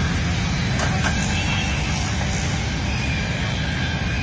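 Steady low rumbling noise throughout, with a couple of faint light clinks about a second in.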